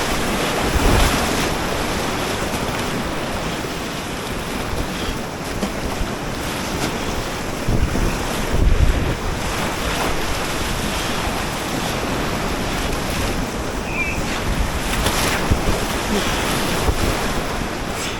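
Fast river water rushing and splashing around a kayak, with wind buffeting the microphone. Heavier surges come about a second in and again around eight to nine seconds.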